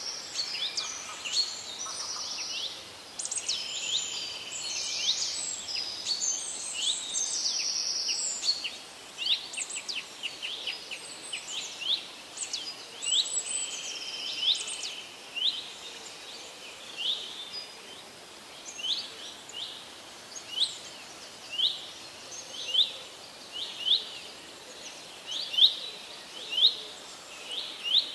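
Birds singing over a faint background hiss: several overlapping songs in the first half, then one bird repeating a short, high chirp about once a second.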